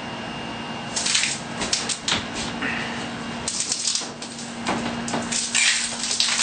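Irregular scraping and rubbing noises, starting about a second in, as a shower wall panel is handled and pressed back against the silicone on the wall, over a steady low hum.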